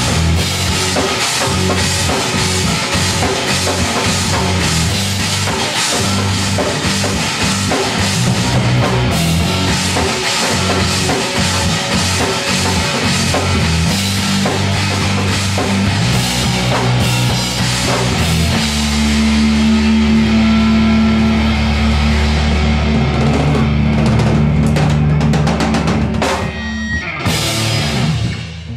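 Live rock band playing, with a busy drum kit driving the song. About two-thirds of the way in the band moves to a long held chord over the drums, which is the song's ending, and the sound cuts off near the end.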